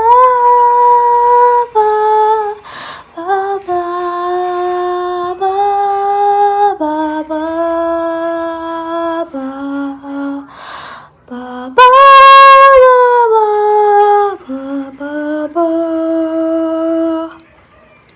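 A woman singing a wordless melody alone, without accompaniment: long held notes stepping up and down, with audible breaths between phrases. The loudest, highest note comes about two-thirds of the way through, and the singing stops shortly before the end.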